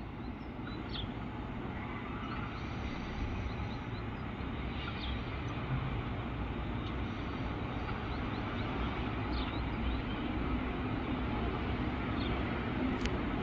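Rhaetian Railway train headed by an electric locomotive approaching through the station, a steady rumble that slowly grows louder as it draws nearer.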